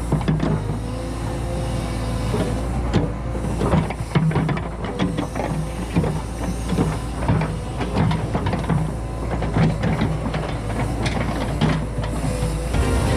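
Caterpillar 314E excavator running, its diesel engine droning steadily under a hydraulic whine, with many irregular knocks and clanks from the bucket and machine working dirt and rock.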